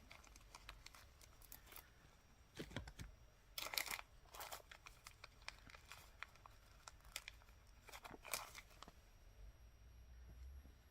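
Small plastic bead bags being cut open and handled: faint crinkling with a few short crackly bursts and scattered light clicks.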